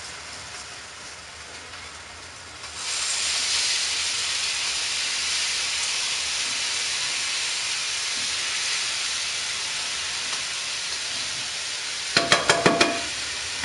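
Corned beef sizzling in a hot skillet, the sizzle jumping up sharply about three seconds in as sauerkraut goes into the pan, then holding as a loud steady hiss. Near the end, a few quick clicks of a utensil against the pan.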